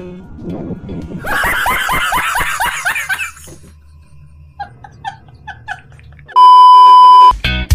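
A man laughing hard in quick repeated bursts, which then go on more faintly. Near the end a loud, steady, high beep lasts about a second and is cut off as music starts.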